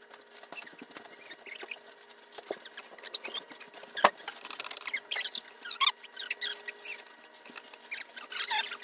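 Wood-burning pen's hot tip burning into wood: faint irregular crackling, sizzling and small squeaky scrapes as the tip is drawn along the letters, with one sharp click about four seconds in.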